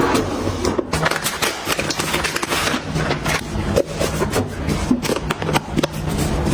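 Kitchen items being handled and set down: a rapid run of small clicks, taps and knocks over a faint steady low hum.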